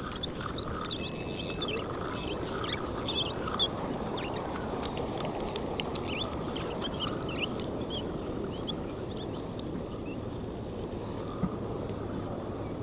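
Spinning reel squeaking as it is cranked: many short, high squeaks, thinning out near the end, over steady wind and surf.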